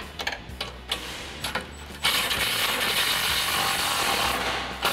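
A few sharp metallic clicks as a socket is fitted to a bolt. Then, about two seconds in, a cordless drill-driver runs steadily for about two and a half seconds, driving a bolt that holds a steel skid plate to the crossmember.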